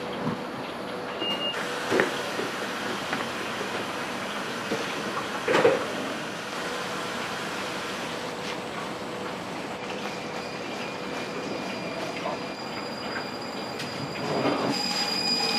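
Steady mechanical hum and hiss with a few sharp clanks: one about two seconds in, one near six seconds, and a louder one near the end.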